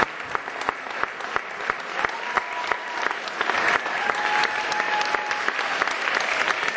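Audience applauding steadily, many hands clapping at once, with two long held high notes sounding above the clapping in the middle.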